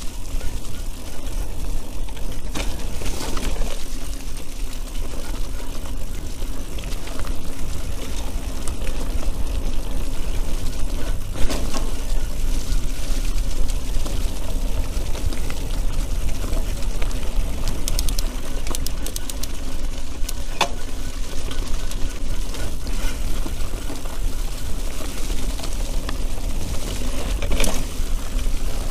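Mountain bike being ridden on a wet, muddy, rooty forest trail, heard through an action camera: a steady rumble of wind on the microphone and of tyres on the trail, with the bike rattling and scattered sharp knocks over bumps, the loudest about a third of the way in.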